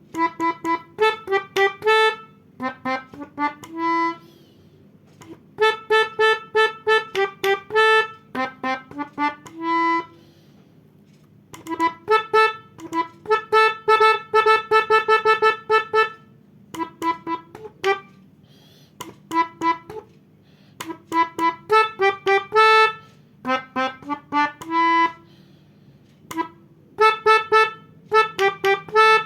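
Pianika (melodica) playing runs of quick, short, repeated notes in phrases of a few seconds, with brief pauses between them: telolet bus-horn tunes played on the reed keyboard.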